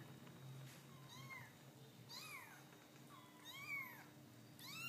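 Young kittens mewing faintly: about four short, high-pitched mews roughly a second apart, each rising and then falling in pitch.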